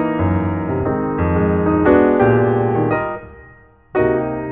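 Background piano music: notes and chords struck one after another, dying away about three and a half seconds in before a new chord sounds.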